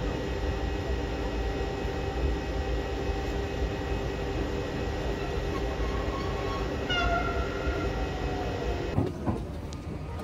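Vintage ÖBB class 4061 electric railcar rolling slowly past a standing electric locomotive, with a steady electric hum. A brief high squeal comes about seven seconds in, and the sound cuts off abruptly near the end.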